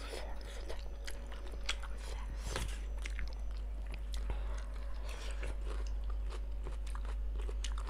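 Close-up eating sounds: chewing and biting with scattered wet clicks and crunches, as during a noodle-soup mukbang.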